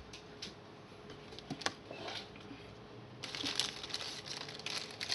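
Plastic crinkling and rustling as a thick trading card is handled and worked into a plastic sleeve, starting about three seconds in, after a few faint clicks.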